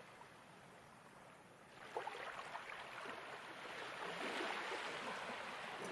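Ocean waves washing onto a shore: very faint at first, then a wave swells in about two seconds in and keeps rushing.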